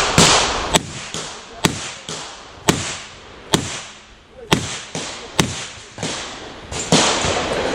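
A string of handgun shots, about eight or nine sharp cracks spaced roughly a second apart at an uneven pace, each trailing off in a short echo.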